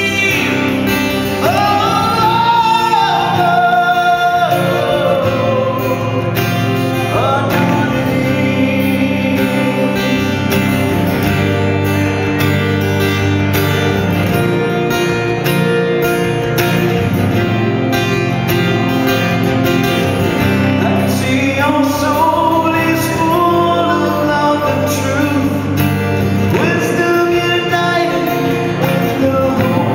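A man singing to his own acoustic guitar. The voice drops out for about ten seconds in the middle while the guitar plays on, then comes back for the last part.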